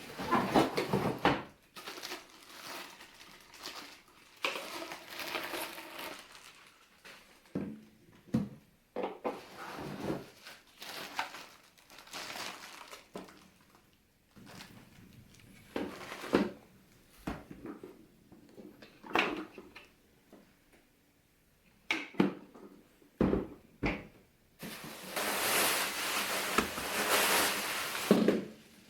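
Handling noises: scattered plastic clicks and knocks with rustling between them, and a longer rustle lasting about three seconds near the end.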